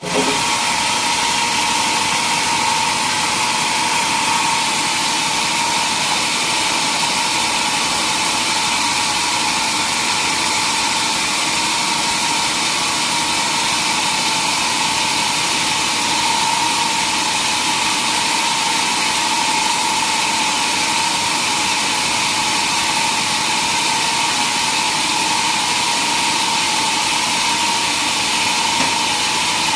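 Sawmill machinery running steadily, a constant high whine over a dense hiss without pause.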